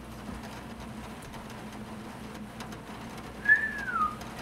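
A person whistling one short note that gliding down in pitch about three and a half seconds in, over a steady low hum.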